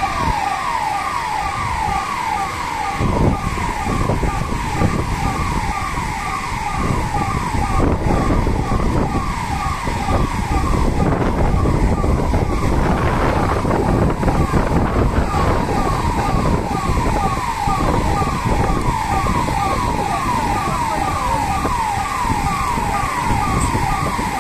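An electronic siren sounding in quick falling sweeps, about two to three a second, with a short break about ten seconds in. Under it runs a loud, steady rushing noise from the fire hoses' water jets.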